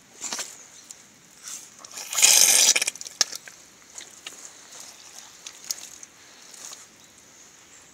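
Rubber boots squelching in wet forest mud: a few soft steps, with one louder wet squelch lasting just under a second about two seconds in.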